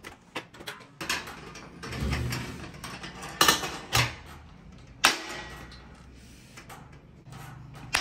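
Stainless steel toggle latches on a distiller pot being worked and snapped shut to clamp the domed lid down: several sharp metallic clicks and clanks amid handling and rubbing noise.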